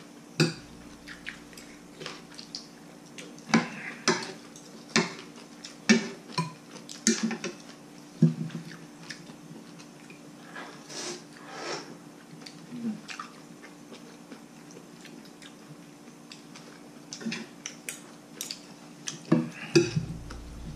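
Metal spoons and forks clinking and scraping against ceramic bowls and plates while eating, in scattered sharp clicks with a quieter stretch in the middle.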